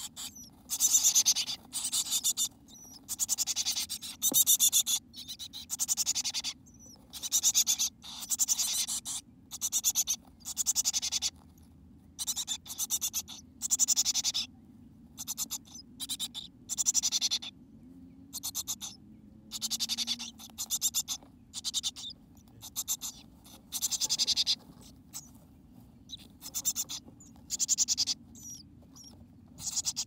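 Chickadees inside a nest box making short bursts of high hissing noise, roughly one a second, with quiet gaps between.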